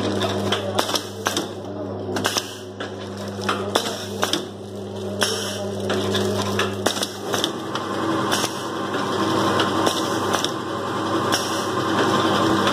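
Vertical form-fill-seal pouch packing machine running, its sealing jaws and mechanism clacking in quick, uneven strokes over a steady low hum. The hum fades about seven seconds in while the clatter grows louder.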